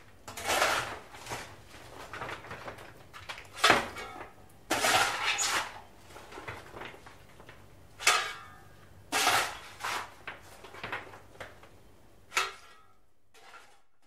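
Coal being shovelled into a paddle steamer's boiler firebox: about ten scraping, clattering shovel strokes at irregular intervals over a low steady hum, stopping near the end.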